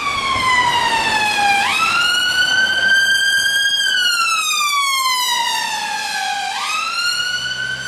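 Emergency vehicle siren on a passing car with flashing blue lights, wailing: a single tone that slides slowly down and up, with a quick jump upward about two seconds in and again near the end.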